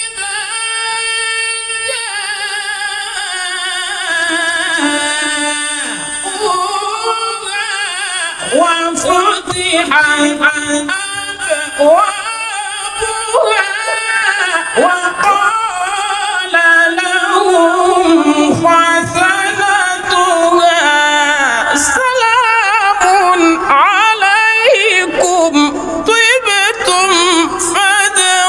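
A man's voice reciting the Quran in a melodic, sung style. It opens on a long high held note, then moves into ornamented melodic phrases that rise, fall and waver, growing louder in the second half.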